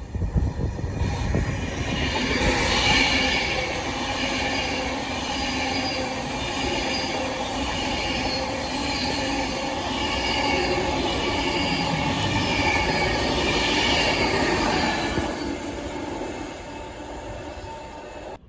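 Electric train passing, its wheels squealing on the rails over the steady running noise; the sound builds about a second in and fades away near the end.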